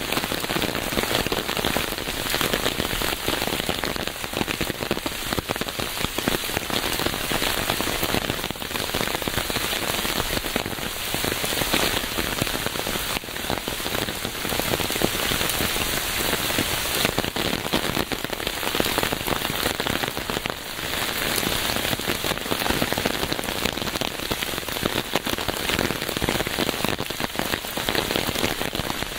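Steady rain falling on a surface, a dense patter of many drops.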